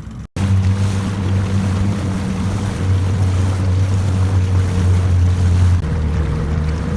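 Small boat's outboard motor running at a steady speed, with water and wind noise rushing over it; the engine note shifts slightly near the end.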